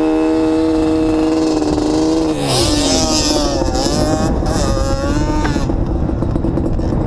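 Off-road vehicle's engine running hard over sand. It holds steady high revs, drops off about two seconds in, then revs up and down. Wind rushes over the microphone.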